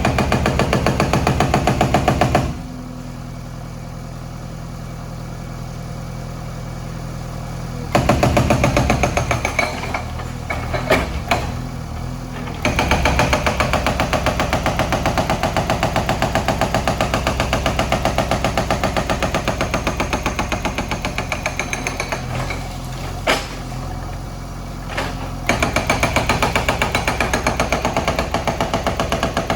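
Hydraulic breaker on a JCB backhoe hammering in rapid, evenly spaced blows, in several spells of a few seconds to about ten seconds. In the pauses the machine's diesel engine runs on its own, with a few single knocks.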